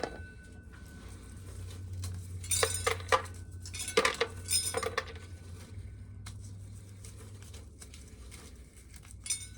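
Dry shelled corn kernels clinking and rattling in several short bursts as ear corn is shelled into a tub, over a steady low hum.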